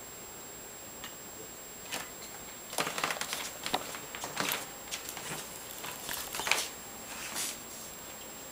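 Irregular rustling and scuffing with a few sharper clicks, starting about two seconds in and dying away near the end.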